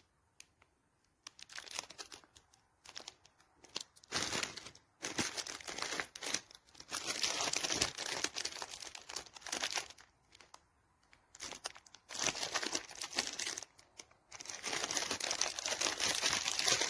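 Crinkly wrapping or packaging being handled and crumpled, in repeated bursts of crackling with short pauses between them.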